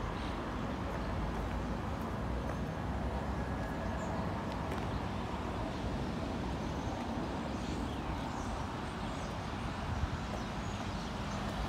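Steady outdoor street ambience: a low rumble of distant traffic, with a few faint bird chirps high above it.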